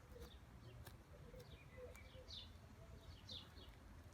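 Faint bird chirps: short falling notes repeating about every half second to second.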